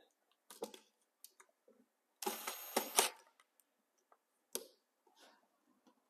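Cordless Ryobi impact driver run in one short burst of just under a second, a little over two seconds in, driving a receptacle's mounting screw into its box. Scattered clicks and knocks of the tool and receptacle being handled come before and after.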